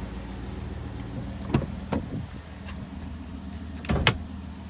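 Ram 1500 pickup's engine idling steadily, with the driver's door latch clicking open about one and a half seconds in and the hood release lever being pulled with two sharp clicks near four seconds in.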